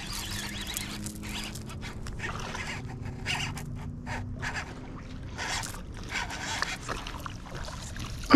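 Hooked bass splashing and thrashing at the pond surface as it is reeled to the bank, in short irregular bursts.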